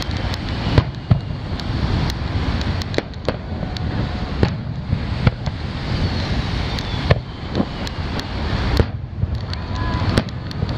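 Aerial firework shells launching and bursting: a string of irregularly spaced sharp booms and cracks over a steady low rumble.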